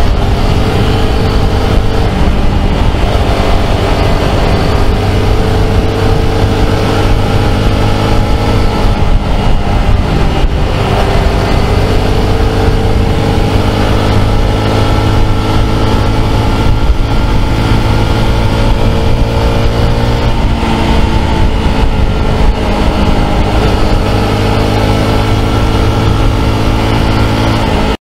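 Honda CT125's single-cylinder four-stroke engine running steadily while the bike cruises on a sealed road, its note rising and dipping a little with the throttle, recorded from the bike. It cuts off suddenly near the end.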